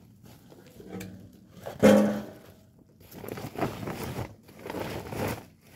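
Plastic tarpaulins over a stack of firewood rustling and scraping as they are pulled about, in irregular spells, with one short louder sound about two seconds in.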